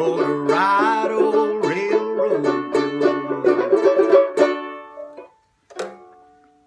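Banjo ukulele picked and strummed through the closing bars of a folk tune, the notes stopping about five seconds in. A short knock follows near the end.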